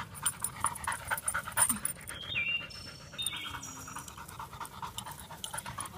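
A yellow Labrador retriever panting quickly and in a steady rhythm as it runs, with a few short, high chirps around the middle.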